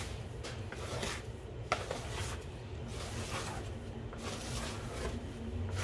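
Hands kneading and pushing a soft bread dough across a floured granite countertop: soft, irregular rubbing and pressing strokes, over a faint steady low hum.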